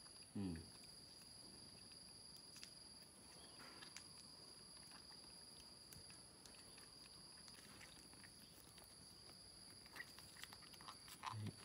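Near silence: a faint steady high-pitched whine, with scattered light clicks and a short, low, falling voice-like grunt just after the start and again near the end.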